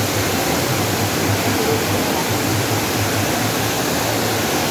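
Waterfall: steady, loud rush of falling water pouring into its pool.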